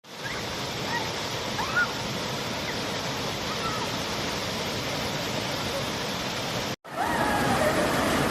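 Steady rush of water from a rainforest creek and waterfall, with faint distant voices. It cuts off abruptly about seven seconds in, and after it voices come over the water.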